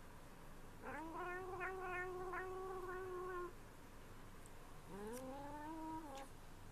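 A cat yowling twice. A long drawn-out call rises and then holds about a second in, and a shorter rising call follows near the end.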